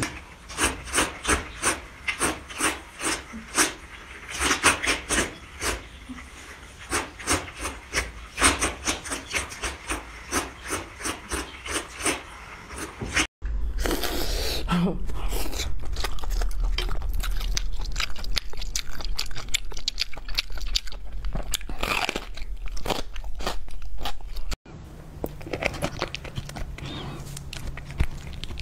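Close-up eating sounds: noodles being slurped and food chewed, in quick runs of short sharp smacks, about three or four a second. About 13 s in and again near 25 s the sound cuts abruptly to other eating, the middle stretch steadier with a low hum under it.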